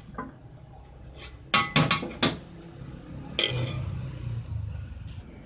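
Metal slotted spatula clinking and knocking against a metal cooking pot while turning cooked rice. There are several sharp clinks, with a quick run of four about one and a half to two and a half seconds in.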